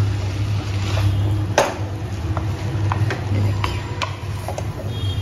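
A black spatula knocks and scrapes irregularly against a metal wok as stir-fried noodles are tossed over a high flame, the loudest knock about a second and a half in. A steady low hum runs underneath.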